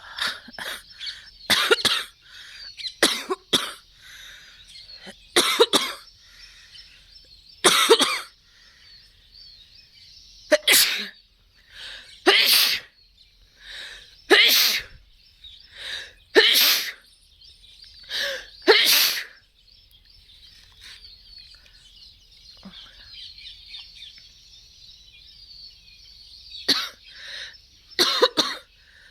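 Repeated sneezes brought on on purpose by tickling inside the nose with a thin incense stick, as a yoga nasal-clearing practice. There are a dozen or more short, sharp bursts, often in pairs, every second or two, then a pause of several seconds, then a few more near the end.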